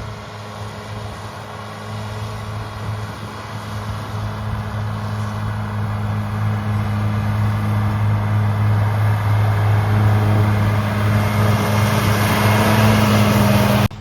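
Tractor engine running at a steady speed, growing gradually louder.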